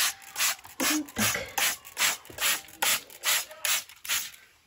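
Small hand trigger spray bottle misting houseplants: quick, even squirts of fine spray, about two and a half a second, stopping shortly before the end.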